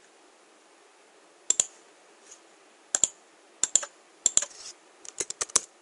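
Computer keyboard keys and mouse button clicks: a few single and double clicks spaced a second or so apart, then a quick run of keystrokes near the end.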